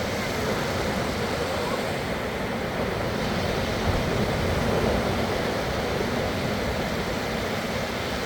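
Sea waves washing onto a sandy beach, a steady rush of surf.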